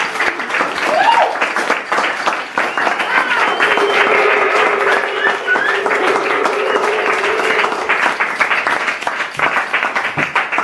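Audience applauding and cheering, with a whoop about a second in.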